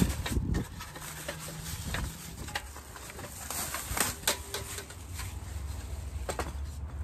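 Clear plastic wrapping crinkling and rustling as a portable gas stove is handled and lifted out of its bag and carrying case, with scattered sharp crackles and small knocks throughout.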